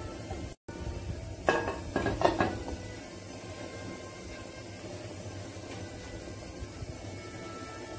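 Gas stove burner running with a steady rushing noise under a grill pan that is heating up. A few sharp knocks come about one and a half to two and a half seconds in.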